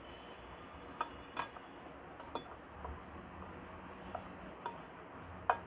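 Faint, irregular clicks and clinks of a utensil against a bowl as chicken pieces are mixed into an egg, flour and cornflour coating.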